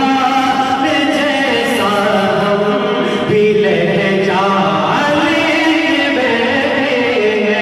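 A male voice singing an Urdu devotional kalam, with long held notes that bend and glide in pitch.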